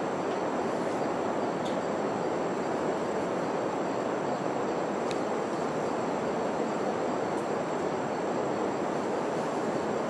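Steady rushing outdoor background noise with no distinct events, over a faint steady high-pitched whine.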